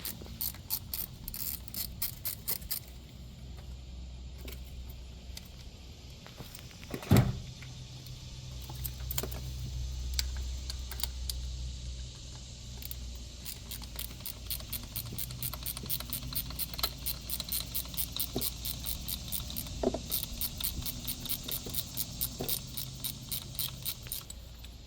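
Rapid metallic clicking of a ratchet as small screws are backed out of an ignition module, in runs near the start and through the second half, with one louder knock about seven seconds in.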